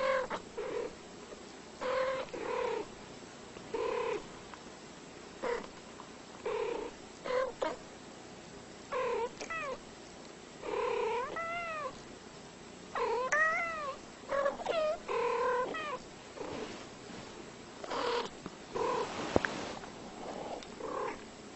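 A cat meowing over and over, short calls every second or two, some of them rising and falling in pitch.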